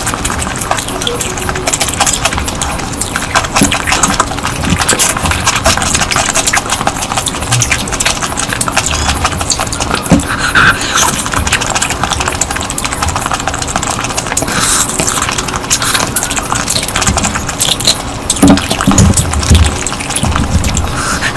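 Close-miked eating sounds: wet chewing and lip smacking on curry, a dense run of short wet clicks.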